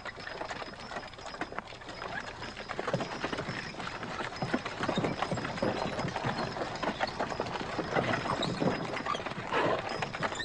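A horse's hooves clip-clopping as it pulls a carriage, with the carriage clattering along behind.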